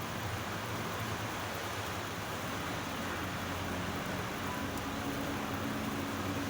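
Steady rain falling, an even hiss of drops with no breaks. A faint low hum sits underneath and grows a little stronger near the end.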